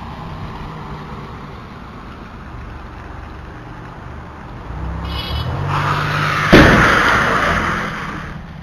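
A car coming on fast over a wet road, its noise swelling from about five seconds in, then one loud crash of a collision. The noise dies away over the next two seconds, over a steady low hum.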